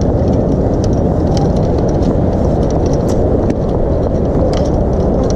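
Steady rush of wind on the camera microphone while walking, with scattered light clicks of footsteps on the wooden pier deck.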